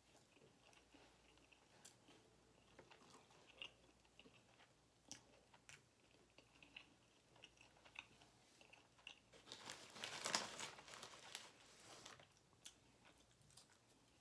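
Faint close-up chewing of a mouthful of cheesesteak sub, with small wet mouth clicks scattered through. It gets louder for a second or two about ten seconds in.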